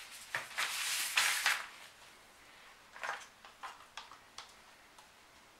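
Handling noise from gloved hands at a painting table: a burst of rustling in the first second and a half, then a few short light knocks and taps as tools and paint cups are moved.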